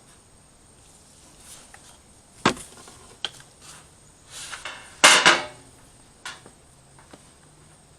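Scattered metallic knocks and clanks of hand tools against sheet metal. There is a sharp knock about two and a half seconds in, a smaller one soon after, a louder clattering cluster around five seconds in, and one last knock a second later.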